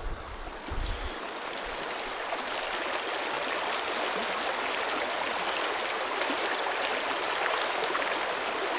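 Shallow river rushing steadily over cobbles and riffles. A short low rumble comes near the start.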